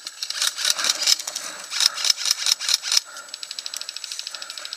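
Airsoft guns firing, scattered single shots and short bursts for about three seconds, then one airsoft rifle firing a steady full-auto burst, a fast, even stream of shots.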